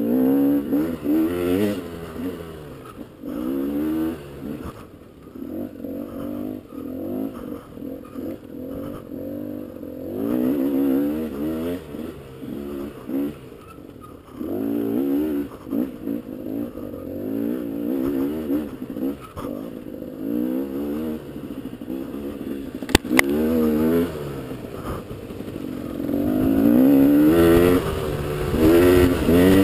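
Dirt bike engine revving up and down again and again as the rider opens and closes the throttle, with the revs climbing hard near the end. A single sharp knock about three quarters of the way through.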